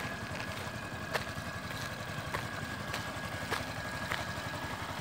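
Small Yamaha motorcycle engine running at low speed as the bike is ridden slowly, a steady low pulse with a few faint ticks.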